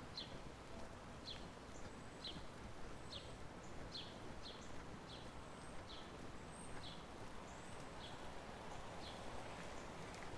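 A bird calling over and over with short, high, falling chirps, a little more than one a second, over steady outdoor background noise.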